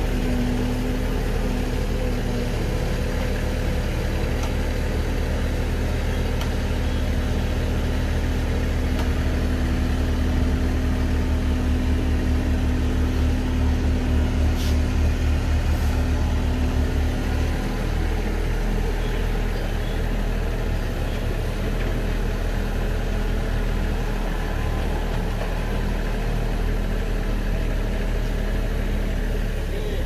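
Kubota U35 mini excavator's diesel engine idling steadily close by; about two-thirds of the way in, its steady hum gives way to a rougher, more uneven note.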